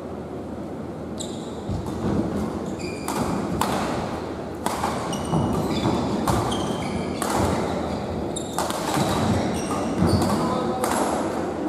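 Badminton rally: racket strings hitting the shuttlecock about once a second, mixed with short squeaks of players' shoes on the court mat, echoing in a large sports hall.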